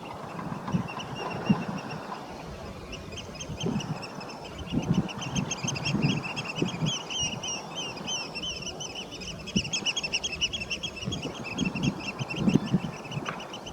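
Eurasian oystercatchers piping raucously: rapid, shrill, repeated calls from several birds at once, building up about three seconds in and easing near the end. Intermittent low rumbles sound under the calls and make the loudest moments.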